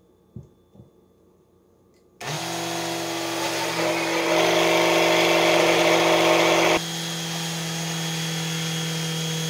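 Two faint clicks, then a small countertop blender switches on about two seconds in and runs with a steady motor hum, beating egg and oil into thick garlic mayonnaise. The churning gets louder, then drops away sharply about four and a half seconds later, leaving the motor's steady hum.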